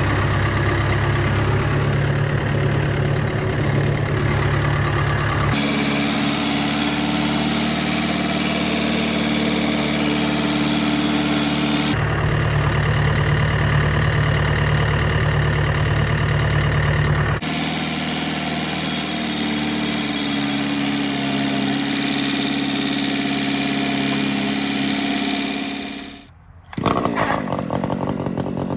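An engine idling steadily. Its sound changes abruptly a few times. Near the end it dies away for a moment, and then a louder engine sound begins.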